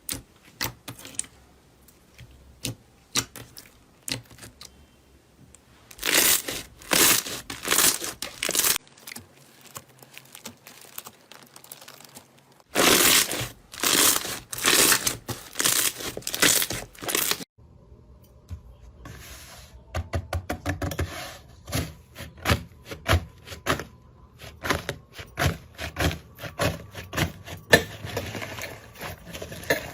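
Slime being pressed, stretched and pulled apart by hand, giving crisp clicks and pops and two long stretches of dense, loud crackling.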